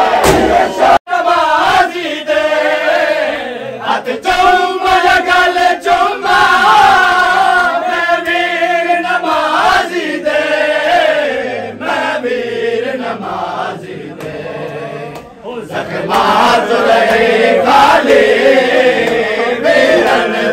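A group of men chanting a Shia mourning lament (noha) together, melodic and loud, with a leading voice. The sound drops out abruptly for an instant about a second in.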